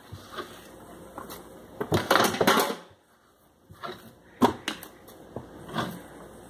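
Sliced onions and bell pepper strips being piled by hand into a crock pot's stoneware insert: soft rustling and handling with a few sharp clicks of pieces against the crock.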